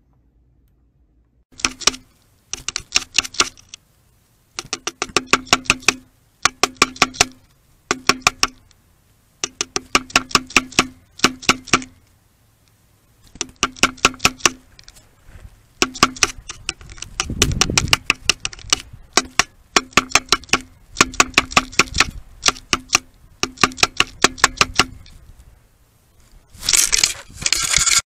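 Gila woodpecker pecking the trail camera's plastic housing and thin motion-sensor Fresnel lens, heard from the camera's own microphone. It strikes in rapid runs of about eight to ten taps a second, each run lasting about a second, with short pauses between, and each tap rings the hollow case. The pecking punches holes through the thin Fresnel lens. A rougher rustling noise comes near the end.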